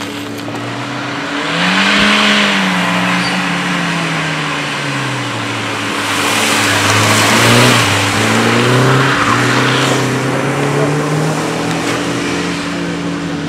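Volvo 480 Turbo's turbocharged four-cylinder engine revving up and down as the car is driven hard through the corners of a wet circuit, its pitch rising and falling. It is loudest as it passes close by, about two seconds in and again around seven seconds, with a hiss swelling each time.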